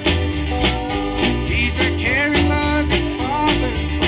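Live country-gospel band playing: acoustic-electric guitar, bass guitar and a drum kit keep a steady beat under a wavering lead melody with bent, gliding notes.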